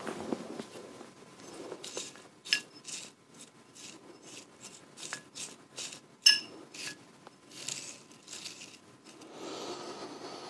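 A small glass vessel is handled close up: light taps, rubs and scrapes, with two clear glass clinks that ring briefly. The louder clink comes about six seconds in, the other about two and a half seconds in.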